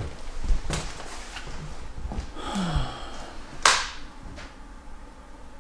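A few short knocks with a brief falling creak in the middle and one sharp knock about three and a half seconds in.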